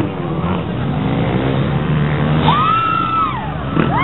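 Motocross dirt bike engines running, with one bike revving high about two and a half seconds in, its pitch rising and then falling back, and another rev rising near the end.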